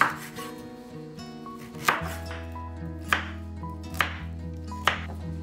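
Kitchen knife chopping through raw pumpkin and striking a wooden cutting board: five sharp chops about a second apart.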